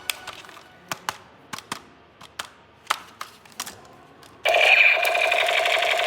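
About a dozen sharp plastic clicks and taps from handling a toy, then about four and a half seconds in a loud electronic tone from a toy's sound effect starts suddenly and holds steady.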